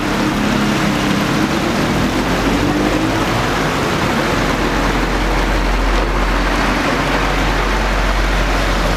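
Steady loud rush of running water. A vehicle engine tone rises and fades over the first few seconds.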